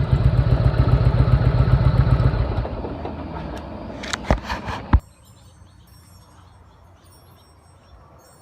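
1998 Harley-Davidson Road King's Evolution V-twin running, with its loose compensator nut retightened, then dying away from about two and a half seconds in. A few sharp clicks come near the five-second mark, then the sound cuts off suddenly to a faint background.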